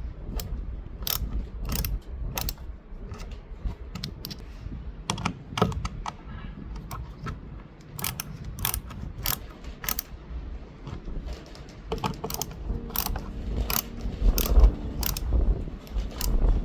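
Screws of a kayak rod holder being tightened by hand with a screwdriver: a run of sharp, irregular clicks as the tool turns.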